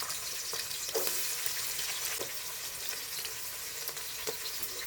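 Onions sizzling as they fry in hot oil in a pan, a steady hiss with a few light knocks as they are stirred.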